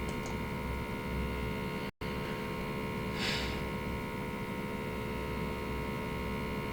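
Steady electrical mains hum in the recording, with a very brief dropout about two seconds in and a short hiss about three seconds in.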